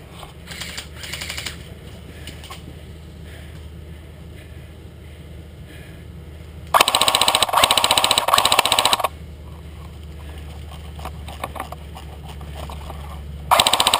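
Magpul Masada airsoft rifle firing on full auto, heard from a camera mounted on the gun: a rapid, loud rattle of shots lasting about two seconds past the middle, then another burst starting near the end.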